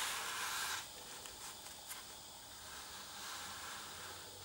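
A paper tissue rubbing and dabbing against the wet edge of watercolour paper, blotting up excess water: a brief rustling hiss in the first second, then only faint room noise.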